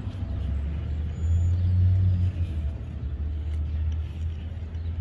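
A low, steady rumble, growing louder between about one and two seconds in.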